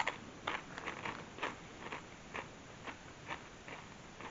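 A person chewing a mouthful of Doritos tortilla chips: a run of crisp crunches about two a second, getting fainter as the chip breaks down.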